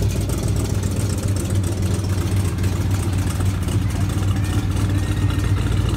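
1969 Chevelle SS's 454 big-block V8 idling steadily, a low, even rumble with no revving.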